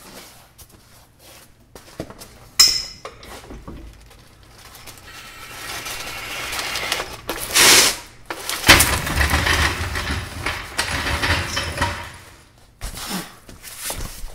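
Metal hardware clinking and clattering as hitch bolts and tools are handled, with a sharp clink about two and a half seconds in. Stretches of rustling and scraping noise follow.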